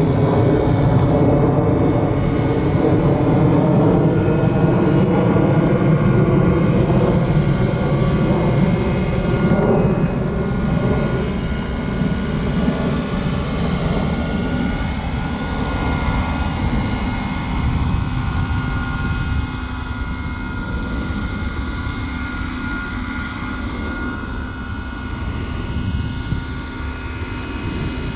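Radio-controlled scale model Bell 429 helicopter flying: rotor beat under a steady high whine from its drive. It is louder for about the first twelve seconds, then quieter and steadier while it hovers low.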